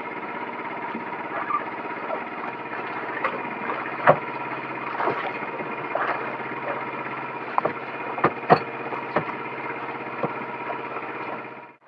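Small engine-driven generator running steadily on the boat, with a few sharp knocks from gear being handled on the deck, the loudest about four and eight and a half seconds in.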